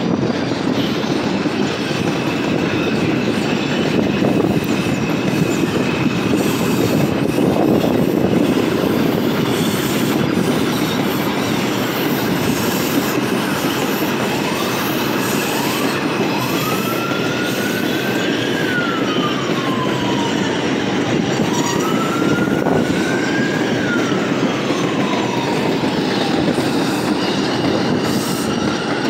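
Bombardier R142 subway train passing close by with steady wheel-on-rail noise. A thin high squeal runs through the first several seconds. In the second half a whine rises and then falls away, twice.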